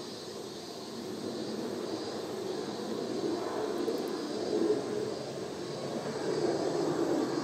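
Boeing 767 twin-engine jet airliner passing high overhead: a distant, steady low jet rumble that swells slightly near the end.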